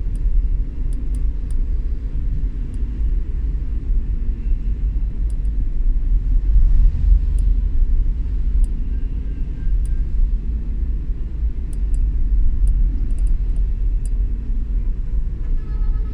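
Steady low rumble of road and wind noise from a moving vehicle, with faint light ticks scattered through it.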